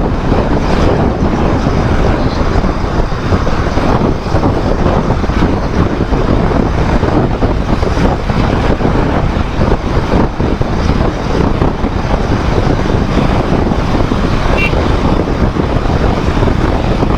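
Wind buffeting the microphone of a Royal Enfield Himalayan 411 riding at highway speed: a steady, loud rush over the motorcycle's running and road noise.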